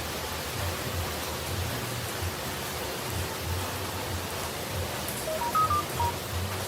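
Steady rushing of falling water, an even hiss with a low, uneven rumble beneath it. Near the end a few short high notes step up and down.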